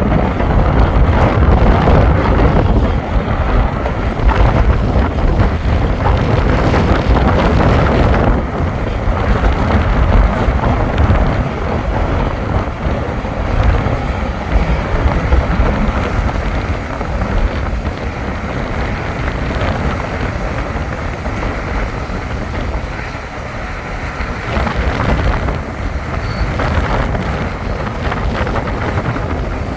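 Bulldozer's diesel engine running steadily while the machine pushes sand, a heavy low rumble that eases off slightly about a third of the way through. Wind buffets the microphone.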